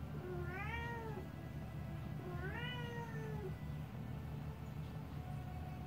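A domestic cat meowing twice, each meow rising then falling in pitch, the second a little longer, over a steady low hum.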